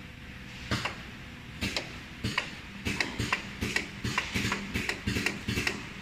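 Pneumatic cylinders of a vial filling and crimping machine's outer-cap station being cycled from the touchscreen, the lateral-move cylinder among them: a series of sharp clacks, a couple at first and then several a second.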